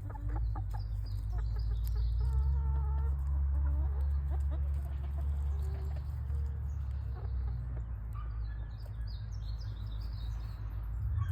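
Hens clucking and calling, with a few drawn-out pitched calls about two to four seconds in and clusters of high, short chirps at the start and again near the end, over a steady low rumble.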